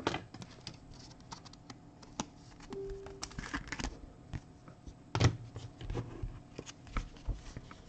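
Trading cards handled and sorted by hand: scattered light clicks and taps of card against card and on the tabletop, with one louder knock about five seconds in.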